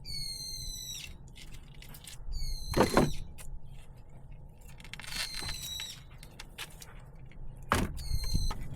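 High-pitched squeals, four in all, each about half a second to a second long and sliding slightly down, typical of nails being pried out of pallet boards. Two heavy knocks on the wood come between them.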